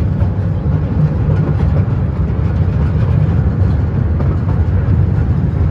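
Small park ride train running, a steady low rumble without a break.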